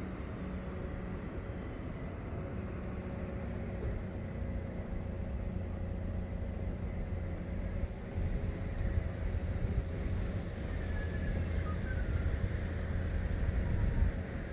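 Wind buffeting the microphone: an uneven low rumble that grows louder and gustier about halfway through, over a faint steady hum.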